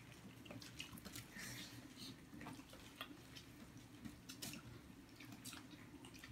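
Quiet eating sounds: scattered faint clicks and soft wet squishes of hands picking rice and food from a shared paper-covered spread, with chewing. A low steady hum sits underneath.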